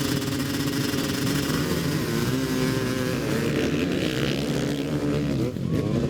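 Motorcycle engine running, its pitch shifting as the throttle is worked, dipping and climbing again near the end.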